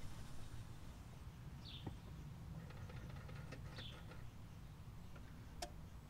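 Car engine idling at the exhaust, a low steady rumble. Two short high chirps, from a bird, come through about two seconds in and again near four seconds.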